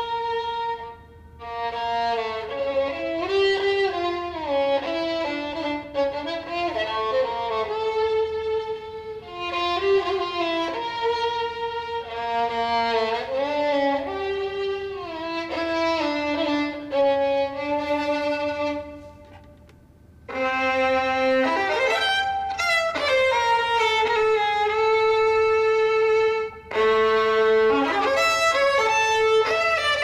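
Two violins playing together, bowed melodic phrases with brief breaks about a second in and near the two-thirds mark. The last third has long held notes joined by rising slides.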